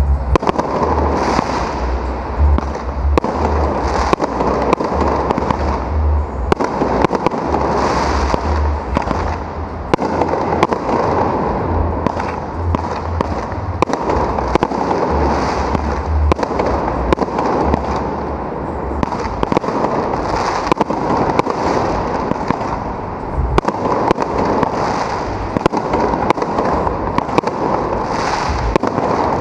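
Aerial fireworks shells launching and bursting in a continuous barrage: a dense, unbroken run of sharp bangs over a steady hiss.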